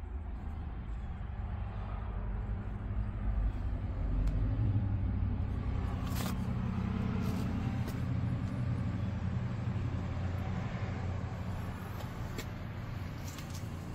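Porsche 911's air-cooled flat-six engine idling steadily, swelling a little about four seconds in, with a few light clicks later.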